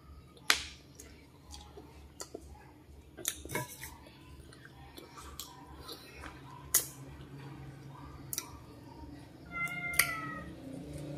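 Mouth sounds of someone eating small black berries picked off the stem: scattered wet clicks and lip smacks, a few of them sharp. Near the end a cat meows once, briefly.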